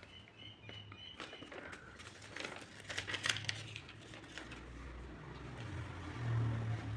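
Faint crinkling with scattered light clicks, and a low hum that grows louder near the end.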